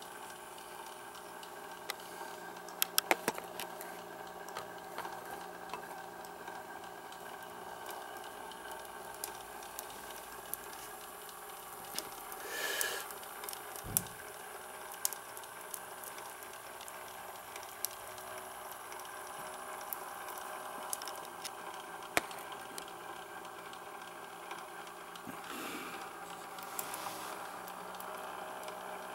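Steady hissing and bubbling from a small copper vertical model boiler under steam, with scattered light clicks. A brief louder hiss swells up about thirteen seconds in, followed by a single low thump.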